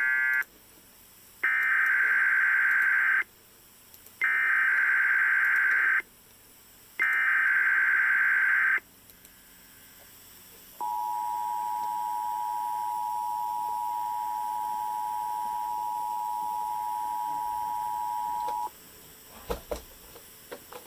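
NOAA Weather Radio weekly test from a weather radio: three harsh bursts of digital SAME header data, each just under two seconds, then a steady warning alarm tone for about eight seconds. A few faint clicks near the end.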